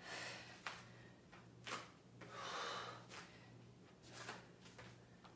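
A woman breathing hard from exertion during lunges with dumbbell curls: several short, sharp breaths and one longer exhale about halfway through. A faint steady hum lies underneath.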